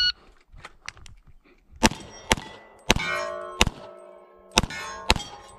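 A shot-timer beep right at the start, then a string of about six pistol shots at steel plates. The struck plates clang and ring between the shots.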